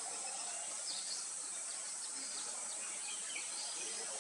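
A steady high insect drone with faint, scattered bird chirps.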